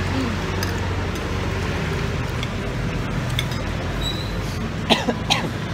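Steady low rumble of road traffic and vehicle engines passing on the street, with a few sharp clinks of metal utensils against ceramic bowls and plates near the end.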